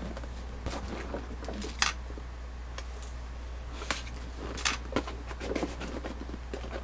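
Cardboard model-kit box being handled and moved, giving a few separate light knocks and scrapes over a steady low hum.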